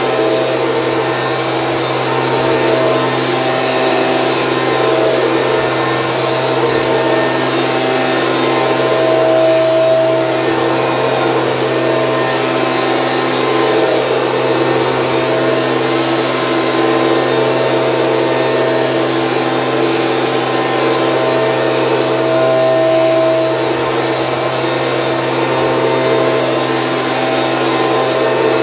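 Stihl BG 86C two-stroke handheld leaf blower running steadily, its engine and fan giving a loud, even blowing hum that swells slightly now and then.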